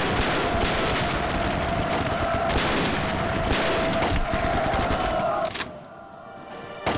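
Dense battle gunfire, rifles and machine guns firing without pause, with a steady high tone running under it; it cuts off about five and a half seconds in, and a single sharp bang comes near the end.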